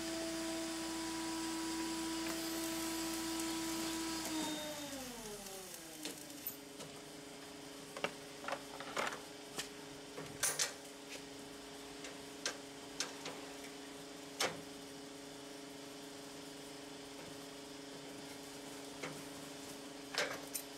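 Locking pliers and C-clamp pliers clicking and clinking against a steel sheet and flat-bar edge as they are set, a few sharp clicks scattered through the middle and two more near the end. Under them a steady machine hum drops in pitch about four to five seconds in and keeps running lower.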